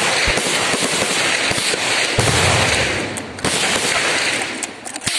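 Gunfire from a line of rifles on a firing range: many shots overlapping in a dense, continuous crackle, easing off near the end with one sharp shot just before it closes.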